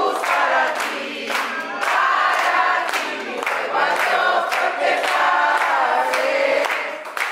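A group of people singing a birthday song together in unison, clapping their hands in time.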